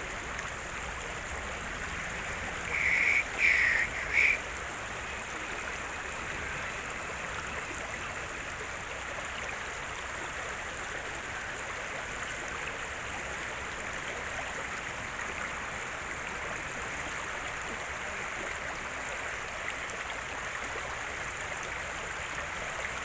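River water rushing steadily over rocks. About three seconds in, three short high-pitched sounds come close together.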